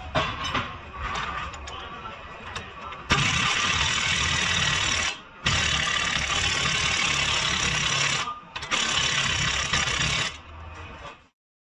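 Pneumatic impact wrench hammering on a bolt at the front steering knuckle, in three bursts of two to three seconds each, starting about three seconds in after a few light clicks of tool handling.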